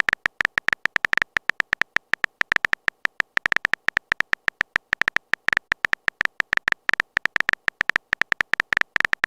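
Rapid, irregular run of short clicky blips, several to about ten a second: a texting-story typing sound effect.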